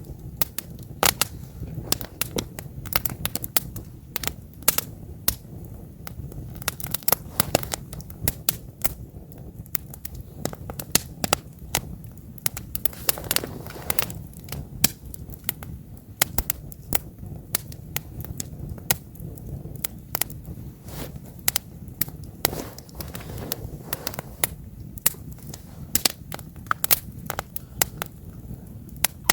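Wood campfire crackling: frequent, irregular sharp pops and snaps over a low, steady rumble of burning.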